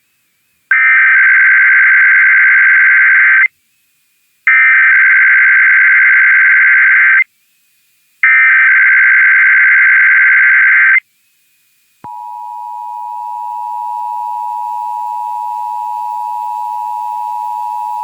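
Emergency Alert System broadcast: three screechy digital SAME header bursts, each about three seconds long with short gaps between them. About twelve seconds in, the steady two-tone EAS attention signal starts, swells slightly and holds. Together they open a required monthly test.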